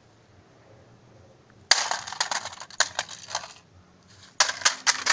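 A plastic drone remote controller being smashed: a rapid clatter of hard plastic cracking and knocking. It starts about two seconds in, pauses briefly, and starts again near the end.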